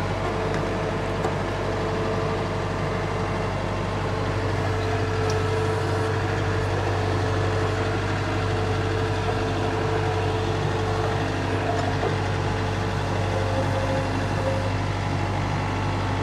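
John Deere 4066R compact tractor's three-cylinder diesel engine running steadily with a constant low hum as the tractor is driven slowly forward.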